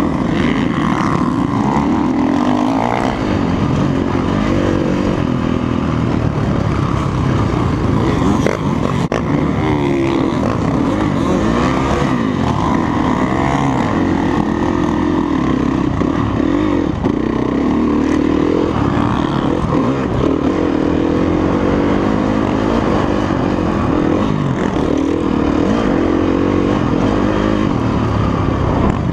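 Motocross dirt bike engine heard from on board, revving up and down continuously as the throttle is worked through corners and straights.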